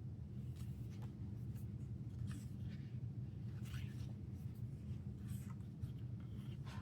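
Pages of a glossy album photo book being turned and handled: a few soft paper rustles and brushes over a steady low background hum.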